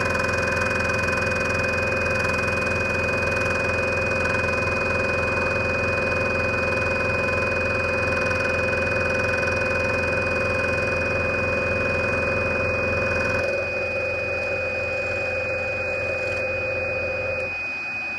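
Large scroll saw running, its motor and reciprocating blade making a steady, even machine sound. About 13 seconds in the sound thins out, and near the end it dies away.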